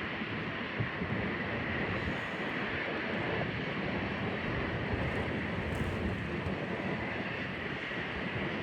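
Freight train rolling steadily past: a continuous rumble of wheels on rail with a steady higher ring in it.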